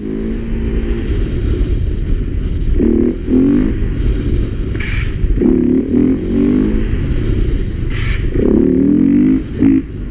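Motorcycle engine running while riding, its revs rising and falling several times as the throttle is opened. Two brief sharp noises cut through about four and seven seconds in.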